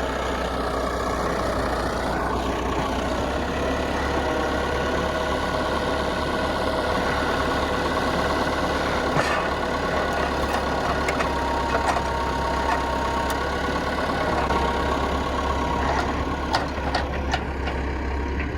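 Diesel farm tractor engine running steadily while a hay bale is moved into place, with a few faint clicks and knocks.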